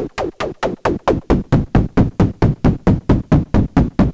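Output of a TDA1524-based voltage-controlled noise and tone filter module, with noise and an external signal mixed and gated into rapid rhythmic electronic hits, about six a second, each with a downward sweep. The tone thins for about a second and then fills out again as the filter knobs are turned.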